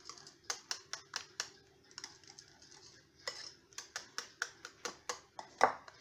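Wire whisk clicking and scraping against a white bowl as a thick yogurt and whipped-topping mixture is whisked and folded: a string of light, irregular clicks, a few each second.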